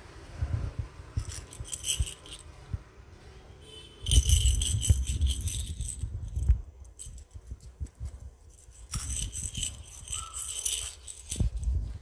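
Hollow plastic rattle-ball toys rattling and jingling as Alexandrine parakeets shake and toss them in their beaks, in three bouts: about a second in, from about four seconds, and from about nine seconds, with soft thuds between.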